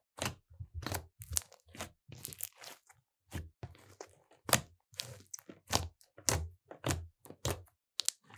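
Glossy slime being kneaded and pressed by hand, with air pockets trapped in it popping in an irregular string of sharp pops, about two a second, and a short softer crackly stretch a couple of seconds in.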